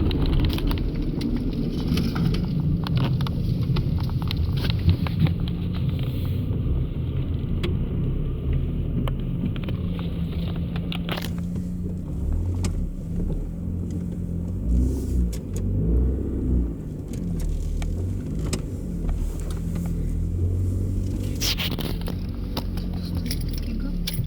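Chrysler PT Cruiser's 2.0-litre four-cylinder engine and newly fitted exhaust muffler running, with a steady low note whose pitch shifts a little now and then.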